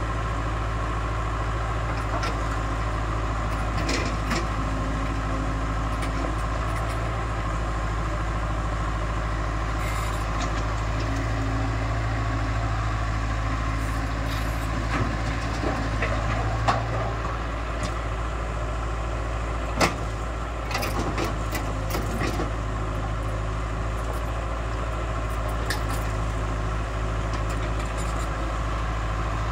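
JCB JS81 tracked excavator's diesel engine running steadily under load while it digs and loads rock into a dump truck, with scattered clanks and knocks of rock and bucket, two sharper knocks past the middle.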